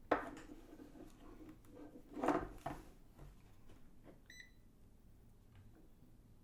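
Knocks and a clatter from handling a digital multimeter and its test leads, the loudest about two seconds in. About four seconds in comes a single short, high beep from the meter as its range button is pressed.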